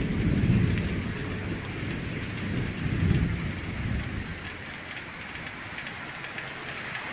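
Stormy weather: a steady rain hiss with low rumbling swells, the strongest in the first second and another around three seconds in.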